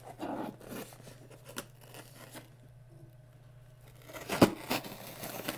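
Cardboard box being cut open with a large serrated knife: scratchy rustling and scraping of the blade through the cardboard, a quieter stretch, then a sharp crunch about four and a half seconds in followed by more scraping.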